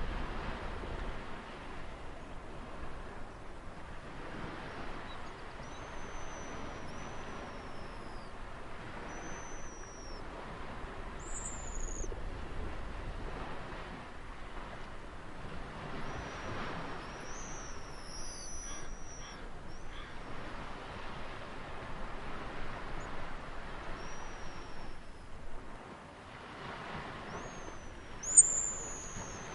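Sea waves washing on a shore in a steady rush that swells and eases every few seconds. Over it a bird gives high, thin whistled calls that fall in pitch, repeated many times, the loudest near the end.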